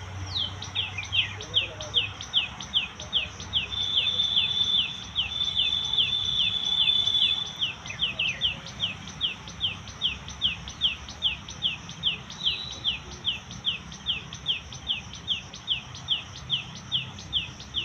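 A bird repeating a short, high, falling chirp two or three times a second, with a steady high tone sounding over it for a few seconds near the start.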